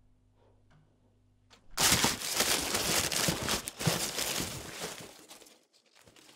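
A clock ticking faintly about once a second, then, from about two seconds in, a loud crinkling rustle of plastic bags being rummaged through in a cardboard box, which fades out near the end.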